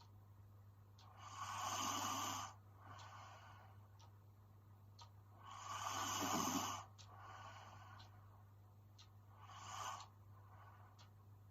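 A sleeping woman snoring: three snores about four seconds apart, each followed by a softer breath out, over a low steady hum.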